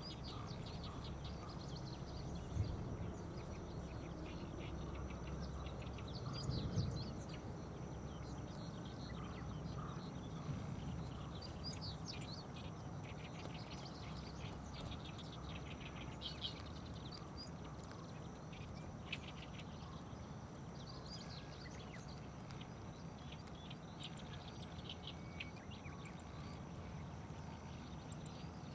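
Small birds chirping and twittering in the background, scattered short high calls over a steady low outdoor rumble, with a couple of dull thumps in the first seven seconds.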